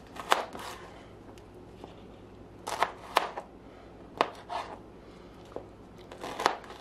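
A kitchen knife slicing through raw Brussels sprouts and knocking down onto a plastic cutting board: about half a dozen sharp, irregularly spaced cuts as the sprouts are quartered.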